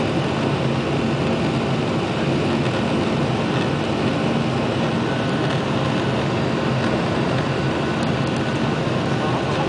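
Steady cabin noise of a Boeing 737-800 climbing after take-off: the CFM56-7B turbofan engines running at climb power and the rush of air over the fuselage, with a low steady hum.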